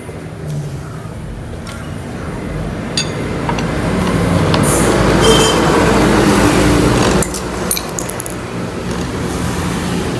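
A few light metal clinks from hand tools being handled against the motorcycle's engine covers. Under them is a rushing noise with a low hum that grows louder for several seconds and then cuts off suddenly about seven seconds in.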